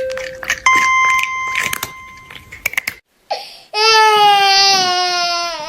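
A run of clicks over steady electronic beeps that step up in pitch. Then a loud, drawn-out cat meow, a long yowl that slowly falls in pitch.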